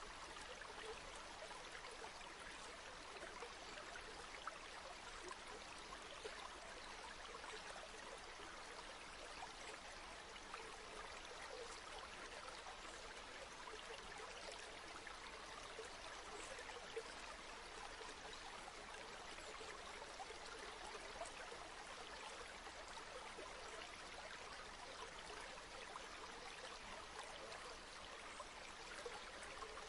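River water flowing steadily over stones, an even rushing with small trickles and gurgles throughout.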